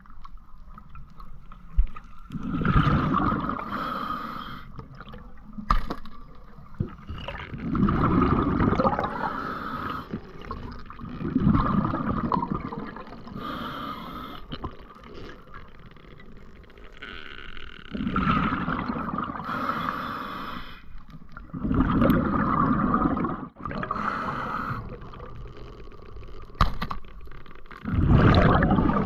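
Scuba regulator breathing underwater: exhaled bubbles gurgle out in a loud burst of a second or two, about every four to six seconds, with quieter breathing between.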